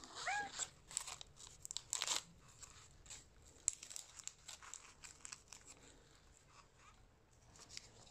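A Maine coon cat gives one short meow near the start, then crinkling and tearing of a plastic cat-treat stick wrapper being opened, in short irregular rustles.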